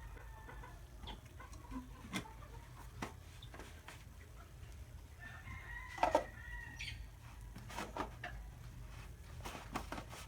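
A rooster crowing once, a held call of about a second and a half some six seconds in, over scattered light clicks and knocks.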